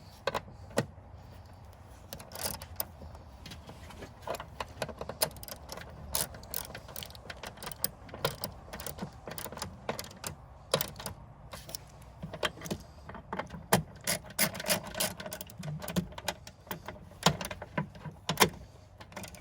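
Hand tools working on a car engine: many irregular metallic clicks and clatters, at times in quick runs.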